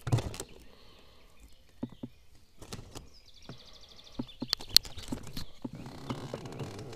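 Knocks and clicks from handling a freshly caught perch and the spinning tackle in a boat. A sharp knock comes at the start, a short rapid rattle about halfway, two sharp clicks soon after, and a rustling, crackling stretch near the end.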